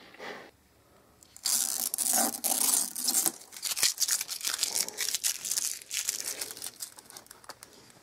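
Paper bag and packing material crinkling and rustling as they are handled. It is loudest in a sustained crinkle from about one and a half to three seconds in, then goes on as lighter, scattered crackles.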